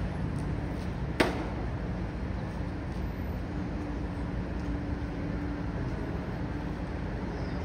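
Urban street ambience: a steady low rumble of traffic, with a single sharp click or knock about a second in and a faint steady hum in the second half.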